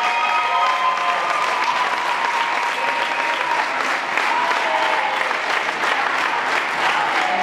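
Audience applauding, dense steady clapping, as the routine's music cuts off at the very start.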